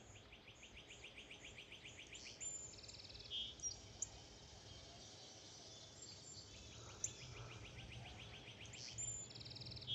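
Faint songbirds singing: a rapid pulsed phrase of about eight notes a second lasting a couple of seconds, which comes back after about six seconds, with short higher trills in between. A steady low hum runs underneath.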